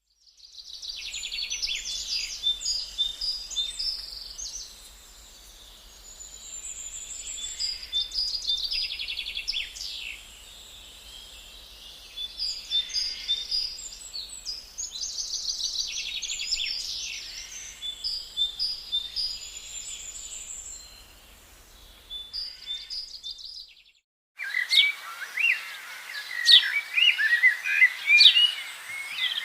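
Songbirds chirping and singing, with bursts of quick high trills repeating every few seconds. Near the end it switches abruptly to a different stretch of faster, denser chirping, which is also the loudest part.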